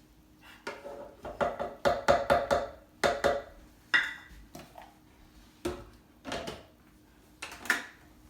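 Hard kitchen objects knocking and clinking: a quick run of sharp knocks with short ringing in the first three seconds, then single knocks every second or so.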